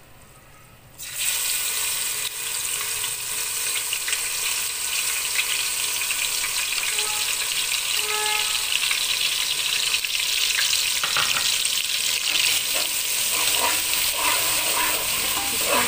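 Ginger-garlic paste going into hot cooking oil: about a second in the oil starts to sizzle loudly, and the frying hiss with small crackles carries on steadily.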